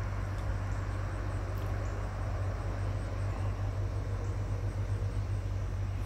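Steady low hum under even outdoor background noise, with no distinct events.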